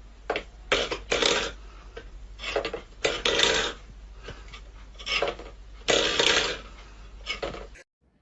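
A series of short, raspy hacking coughs, about seven bouts, often two quick bursts at a time, over a low steady electrical hum.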